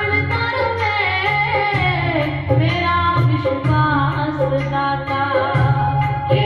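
Devotional bhajan singing at a satsang, with a melody line over a steady low instrumental accompaniment and light percussion.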